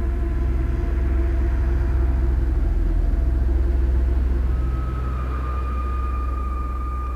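A deep, steady rumble with several sustained tones above it. It swells a little in loudness, and a new higher tone comes in about five seconds in.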